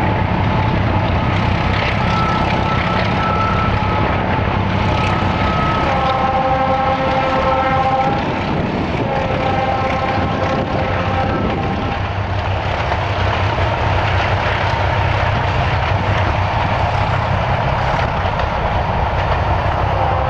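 Horns of a pair of Czechoslovak class 749/751 'zamračená' diesel locomotives sounding several notes at once in about three long blasts, each around three seconds, over a steady low rumble as the train passes.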